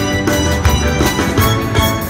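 A live band of drum kit, electric guitar and keyboard plays dance music with a steady drum beat.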